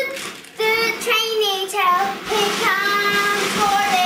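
A young child singing in a high voice, the pitch sliding between held notes, with a brief pause about half a second in.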